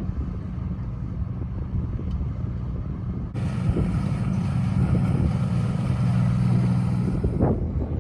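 An engine running steadily with a low hum. About three seconds in, a hiss starts suddenly and then cuts off shortly before the end.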